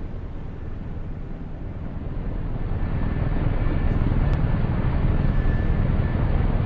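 Low rumble of the Tornado Intercept Vehicle driving, growing louder about two and a half seconds in.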